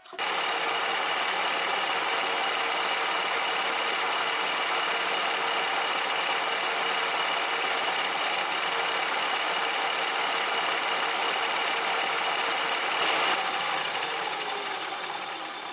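Bridgeport milling machine running, its damaged end mill, missing a tooth, cutting the welded-up jaws of a Lovejoy coupler with a steady machining noise. Near the end the noise fades and a falling whine follows as the spindle winds down.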